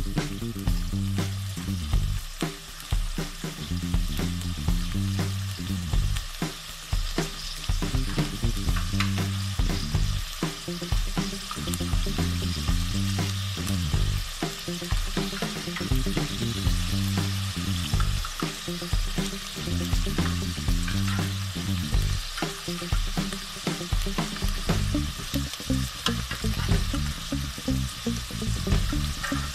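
Minced meat frying in oil in a steel pot, a steady sizzle, with a wooden spoon stirring and scraping through the mince.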